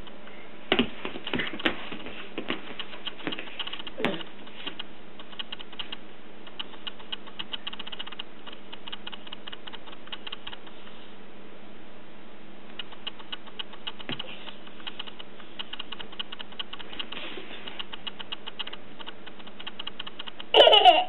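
A steady low hum under a constant patter of light clicks and crackles, with a few louder taps in the first seconds and about four seconds in. A short voice sounds near the end.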